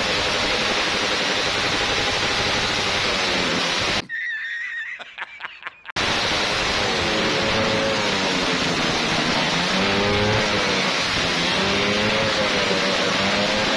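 Motorcycle engine with a loud exhaust being revved over and over, its pitch sweeping up and down. The sound drops out briefly about four seconds in.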